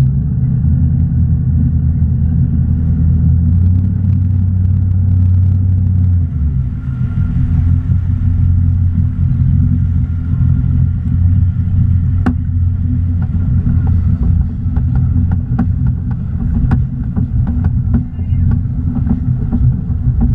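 Inboard engine of a Tige 22ve wakesurf boat running under way, a steady low drone mixed with the rush of the wake and wind on the microphone; the engine note changes about six seconds in, and a few sharp knocks come in the second half.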